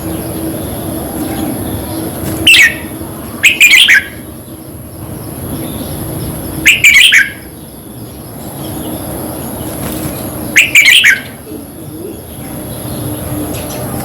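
Red-whiskered bulbul singing: short, loud chirping phrases, one every three or four seconds, over a steady background hum and hiss.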